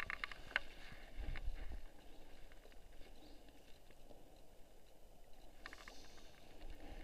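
Quiet handling noise as hands hold a brown trout up in an inflatable packraft: a few light clicks near the start and again about six seconds in, and a low rumble about a second in.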